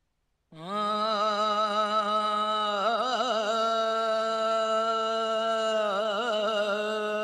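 A singer holds one long wordless opening note of a devotional song, starting about half a second in. The voice twice breaks into quick wavering ornaments before settling back on the same pitch.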